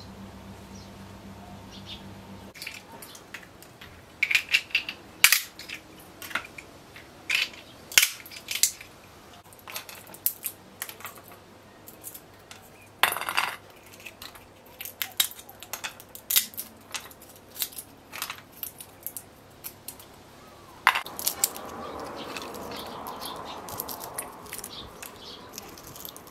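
Walnuts being shelled by hand: a long, irregular run of sharp cracks and snaps as the shells break and pieces are picked off, with kernels dropping into a stainless steel bowl. Near the end it turns to a steadier rustle.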